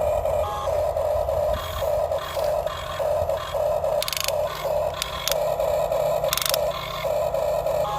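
Electric motors of a Huina 1550 remote-control toy excavator whining in short spurts as its controls are worked on and off, with a few brief scrapes or knocks around the middle.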